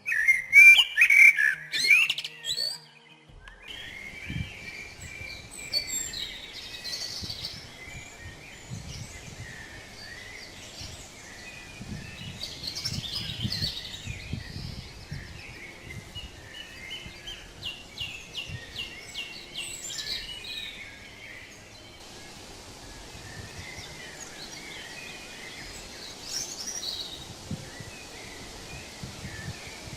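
Several forest songbirds singing and chirping, with one loud, close song in the first few seconds. The steady rush of a mountain stream comes in about three seconds in and runs under the birdsong.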